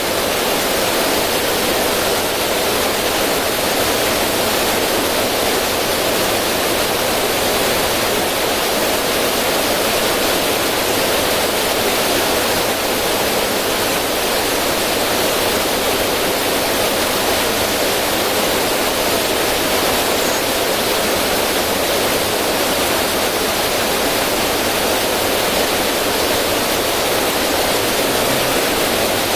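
River water flowing and splashing over rocks in a small cascade, a steady even rushing with no break.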